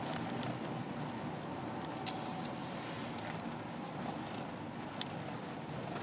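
Steady engine and road noise inside a car's cabin driving slowly, with two sharp clicks, about two seconds in and again near five seconds.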